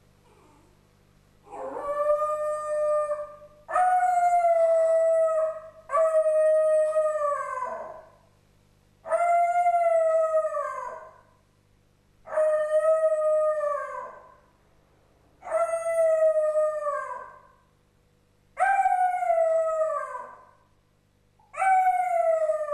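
A West Highland white terrier, left home alone, howling: eight long howls of about two seconds each, one after another with short pauses, each dropping in pitch as it trails off.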